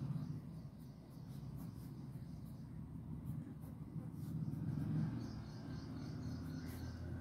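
Ballpoint pen scratching across paper in short strokes as words are written, over a steady low background rumble.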